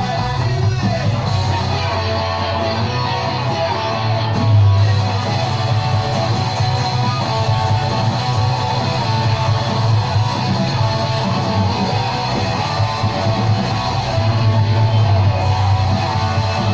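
Music led by guitar, with a steady low bass underneath.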